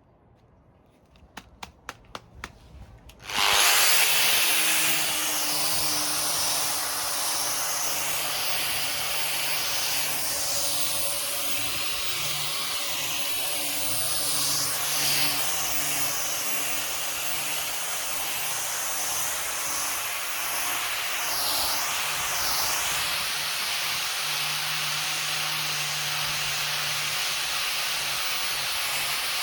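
A few sharp clicks, then an electric orbital sander starts suddenly and runs steadily, its sanding pad rubbing across a wooden table top with an even hiss over a low motor hum.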